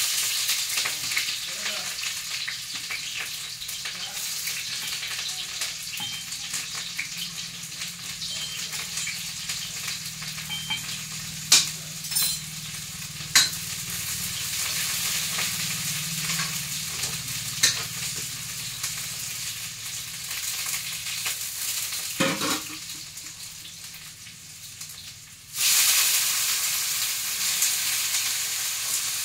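Food sizzling in hot oil in a wok, stirred with a metal ladle that clicks against the pan a few times. The sizzling slowly dies down, then flares up loudly again about 25 seconds in as more food goes into the pan.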